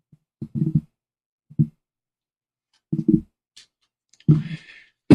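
A man's voice making a few short, low vocal sounds about a second apart, the last with a breathy hiss, as a spoken talk is about to begin.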